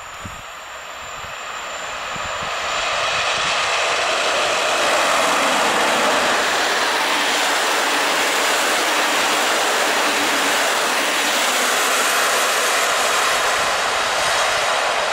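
PKP InterCity passenger train hauled by an EP07 electric locomotive passing close by. The noise of its wheels on the rails builds over the first three seconds, then stays steady and loud as the coaches go by.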